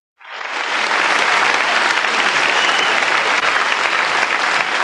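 Concert audience applauding, fading in quickly at the start and then holding steady.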